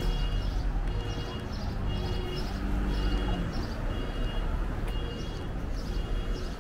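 Street traffic rumble on a city sidewalk, with a short, high two-note chirp repeating about once a second.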